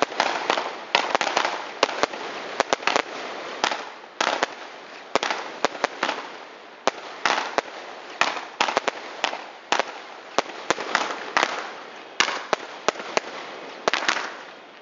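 Fireworks going off in quick succession: many sharp bangs, at times several a second, over a continuous crackling.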